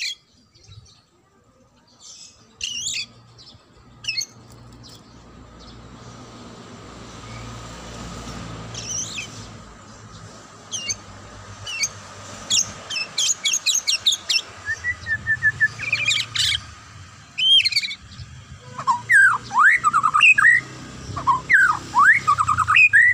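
White-rumped shama (murai batu) singing: scattered chirps at first, then a dense run of rapid high notes and trills about halfway through, ending in loud swooping whistles, over a low steady background rumble.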